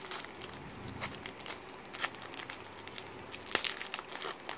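Foil wrapper of a trading-card pack crinkling and tearing as it is opened by hand, in irregular crackles, with sharper ones about two seconds and three and a half seconds in.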